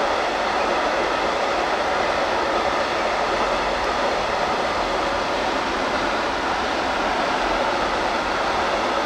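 Long freight train of flat wagons carrying containers rolling past: a steady, even rumble and hiss of steel wheels on the rails.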